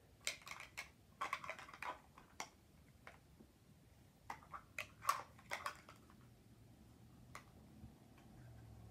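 Hard plastic clicking and snapping as the curved segments of a Mini Brands capsule ball are pulled off by hand: two clusters of quick clicks in the first six seconds, then a single click near the end.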